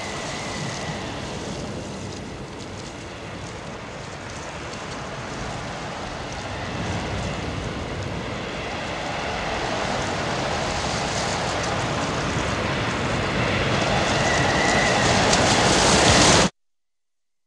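A dense rushing noise, like hiss or surf, that swells gradually and cuts off abruptly near the end.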